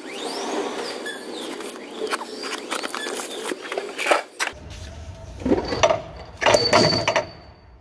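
Clinks and knocks of metal parts while load wheels and their axles are handled and a new polyurethane load wheel is set into a lift truck's fork frame. A low steady hum comes in about halfway through.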